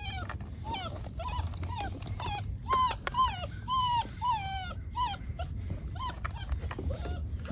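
Seven-week-old basset hound puppy whimpering: a run of short high whines, about two a second, each rising then falling in pitch.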